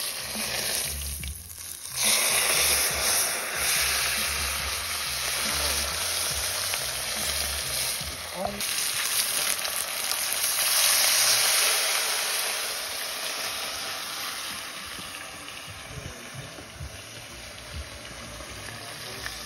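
Fish deep-frying in a pot of hot oil, a steady sizzle. It gets much louder about two seconds in, then eases gradually toward the end.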